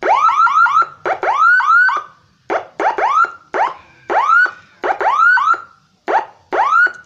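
TOA ZH-610S siren speaker, driven by a six-tone siren module, sounding short rising whoops in quick runs of two to five, with brief gaps between the runs.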